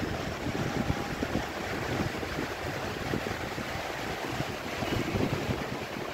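Heavy rain pouring steadily, with gusts of wind buffeting the microphone in irregular low rumbles.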